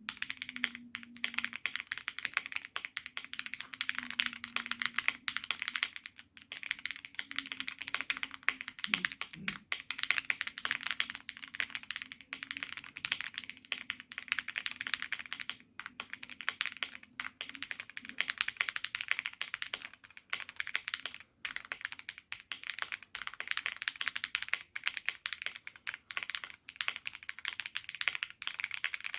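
Continuous fast typing on a KBD67 Lite custom mechanical keyboard with lubed Cherry-top SP-Star Meteor White linear switches, a dense stream of clacky keystrokes broken by a few brief pauses.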